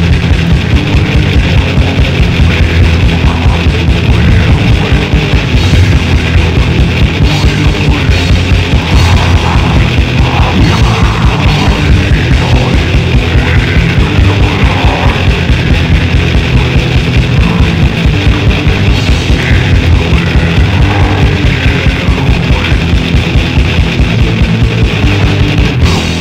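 Grindcore/death metal recording: heavily distorted guitar over fast, steady drumming, loud and dense without a break.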